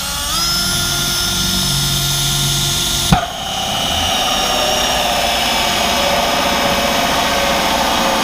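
Power drill driving a large hole saw with a centre pilot bit into the boat's fibreglass deck. The motor whine rises as it spins up, then runs steadily under load with cutting noise. A single sharp knock comes about three seconds in, and the cutting sounds rougher after it.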